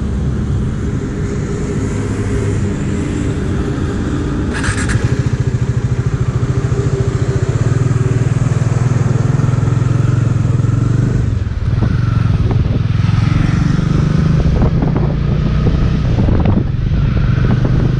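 Motorcycle engine running at a standstill, then revving up and pulling away, accelerating, with a short knock about four and a half seconds in. The engine note briefly drops twice later on, as the rider shifts up through the gears.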